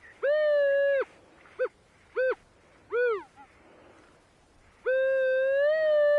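Minelab Manticore metal detector giving its mid-pitched target tone as the coil sweeps back and forth over a buried target: one long tone, three short beeps, then a longer tone near the end that rises slightly. The signal repeats on each pass, a target the detector reads as 19 or 20.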